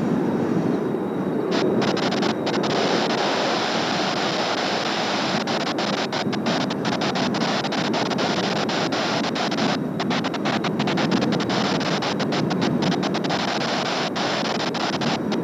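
Strong, gusty wind buffeting the microphone: a steady, heavy rushing noise that swells and eases slightly.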